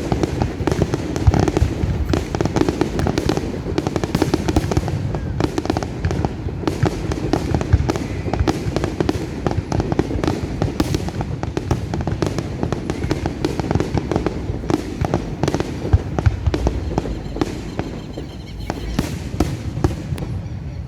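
Fireworks display: a dense, continuous run of rapid bangs and crackling, many overlapping, thinning briefly near the end.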